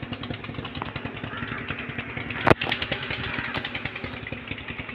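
A small engine running steadily with a rapid, even pulse, and one sharp click about halfway through.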